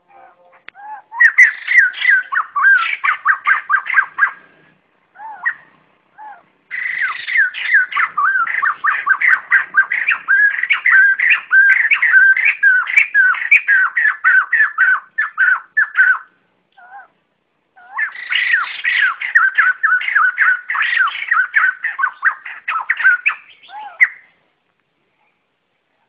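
White-crested laughingthrushes giving their flock call, three long bouts of rapid chattering notes with a few short single calls between them. The calling stops about two seconds before the end.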